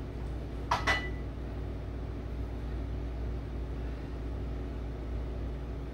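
Steady low mechanical hum of kitchen machinery, with two quick metallic clinks that ring briefly about a second in.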